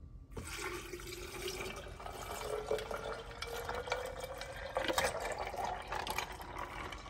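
Tamarind water poured in a steady stream from a plastic pitcher into a glass pitcher full of ice cubes, splashing, with scattered clicks from the ice. The filling note rises slowly as the pitcher fills.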